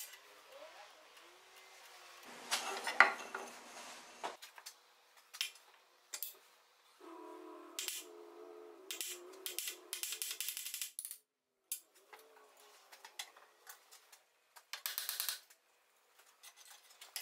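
Scattered metallic clanks, knocks and clinks of a wooden spoke blank being mounted in a homemade duplicating lathe, with a hammer tapping it into place. The sharpest knock comes about three seconds in, and a few short ringing metal clanks follow a few seconds later.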